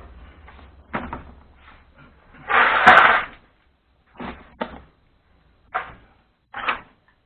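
Knocks and clatter of parts and tools being handled, with one louder rushing noise lasting just under a second about two and a half seconds in.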